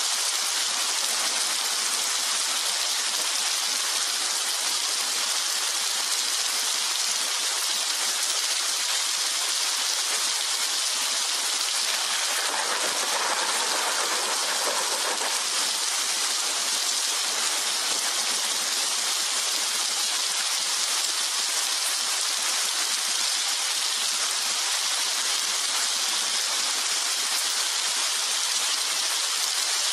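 Rain falling steadily, an even hiss, which swells for a few seconds about halfway through.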